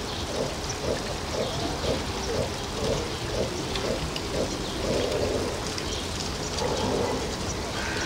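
Construction site noise: a regular knocking about twice a second for the first four and a half seconds, then a looser, uneven rumble, over a steady hiss.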